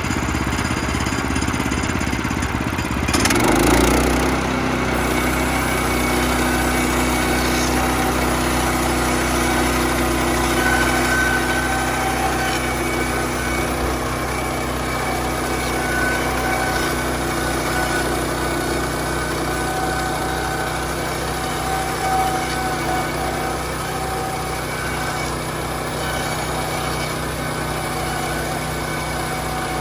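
Portable bandsaw sawmill's small gasoline engine running steadily, with a brief surge about three to four seconds in, as the mill saws a log into boards.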